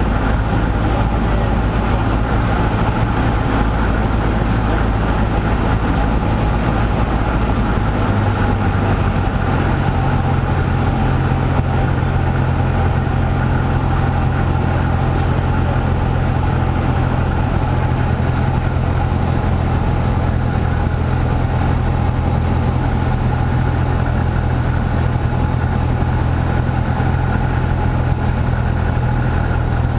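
Piston engine and propeller of a single-engine light aircraft droning steadily, heard inside the cockpit over a constant rush of air on final approach to land. The engine note shifts about nine seconds in.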